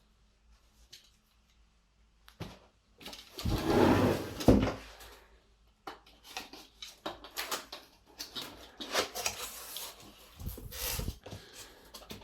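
Unpacking noise: plastic film rustling and crinkling as packed parts are handled, with a heavy knock or two about four seconds in and a run of short crackles and clicks after.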